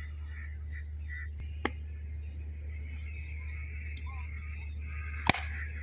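Cricket bat striking a tennis ball: one sharp crack about five seconds in, over a steady low hum and a faint high drone. A smaller click comes earlier.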